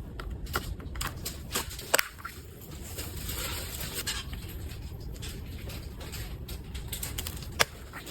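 Packaging being handled: scattered sharp clicks and taps with some rustling, over a steady low hum. Two louder clicks stand out, about two seconds in and near the end.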